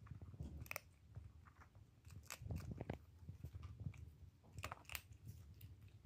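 Domestic cat eating dry kibble: irregular sharp crunches between softer chewing, loudest in clusters about halfway through and near the end.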